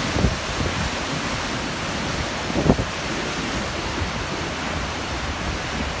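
Steady rushing roar of a tall mountain waterfall, with a few low wind buffets on the phone's microphone, the strongest a little under halfway through.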